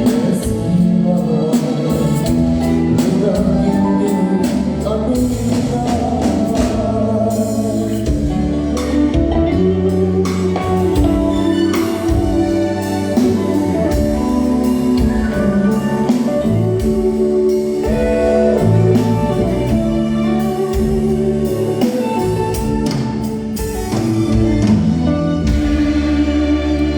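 A live band playing a song, with singing over sustained instrumental chords and steady drum hits.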